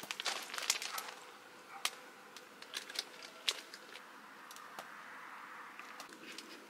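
Scattered sharp small clicks and knocks, as of light hardware being handled. They come in a quick cluster in the first second, then singly about once a second, over a faint steady background.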